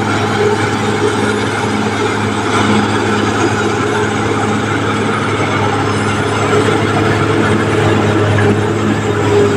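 Caterpillar D6R XL bulldozer's diesel engine running steadily with a constant low hum.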